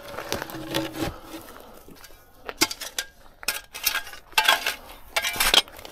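Scattered knocks, scrapes and light metallic clinks as a heavy wooden gate post is set down into a freshly dug hole in stony soil.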